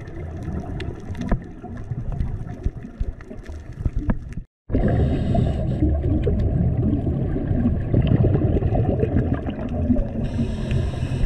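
Scuba regulator breathing heard through an underwater camera housing: exhaled bubbles gurgling, with a breath drawn through the regulator as a hiss near the end. The sound cuts out for a moment about four and a half seconds in.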